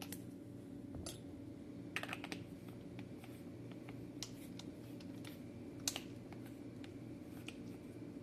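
Sparse light clicks and taps of small hard objects being handled: one at the start, one about a second in, a quick cluster around two seconds, and a sharper one near six seconds. A steady low hum runs underneath.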